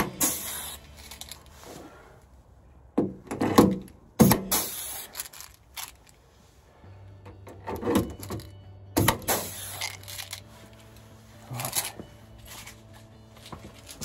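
Air-powered rivet gun setting rivets in a van door's sheet-steel panel: about four sharp pops, each followed by a short hiss of exhausting air, with smaller knocks of the tool being repositioned between them.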